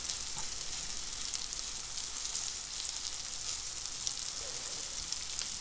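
Chicken breast pieces sizzling in a frying pan, fried in mayonnaise used in place of cooking oil: a steady crackling hiss with scattered small pops.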